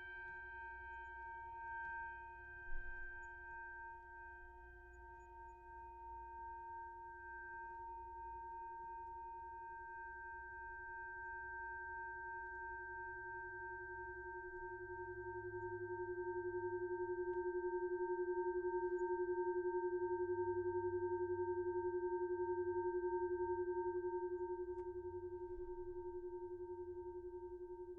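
Metal bell ringing on in one long, wavering tone with several steady overtones, swelling louder about halfway through and easing near the end. A light click about three seconds in.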